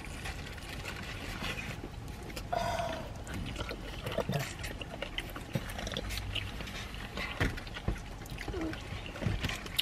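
A person eating a sauced chicken wing close to the microphone: chewing with wet mouth noises and scattered small smacks and clicks.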